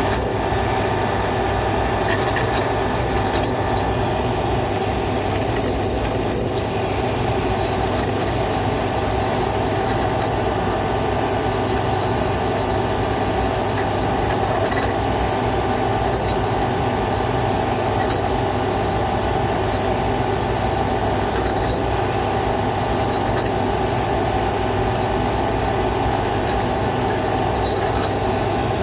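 A spinning mechanism running steadily with a continuous grinding noise, a steady high whine and a few scattered clicks.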